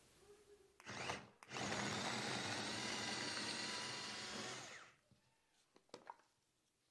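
Small electric mini food chopper chopping garlic cloves: a brief burst about a second in, then about three seconds of steady motor whir that stops suddenly, followed by a couple of light clicks.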